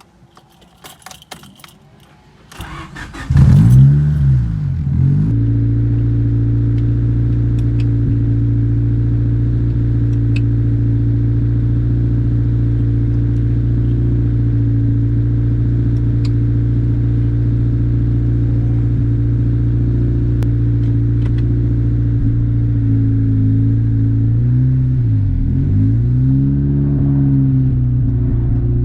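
Keys jingling, then a turbocharged Honda hatchback engine starting with a brief rev flare. It settles into a steady, loud idle through a straight-piped exhaust off a 2.5-inch downpipe, and near the end there are a couple of short throttle blips.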